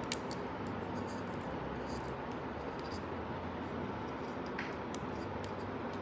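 Quiet room tone with a few faint, light clicks of a small plastic vinyl figure and its packaging being handled.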